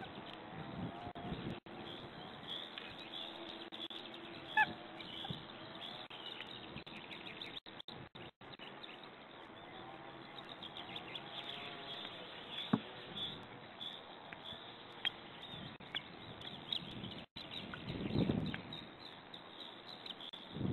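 Small woodland birds chirping and singing in the background, many short high calls overlapping, with a brief rustling noise about three-quarters of the way through.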